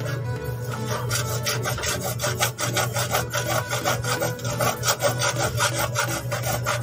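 A hand-held hacksaw blade cutting through PVC drain pipe in quick back-and-forth rasping strokes.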